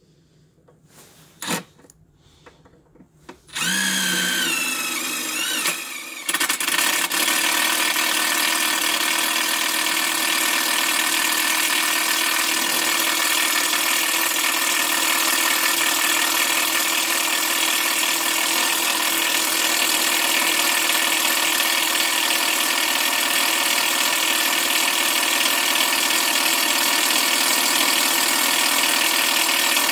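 Milwaukee M12 cordless impact driver drilling into 6 mm metal plate with a twist bit. It starts about three and a half seconds in with a wavering whir, and from about six seconds in it runs on steadily under load with a dense mechanical rattle.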